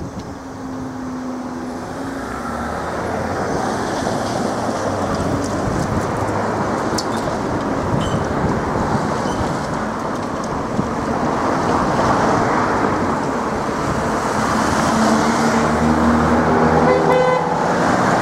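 Road traffic crossing the level crossing once the barriers have lifted: a rushing mix of engines and tyres that grows steadily louder, with an engine hum coming in near the end.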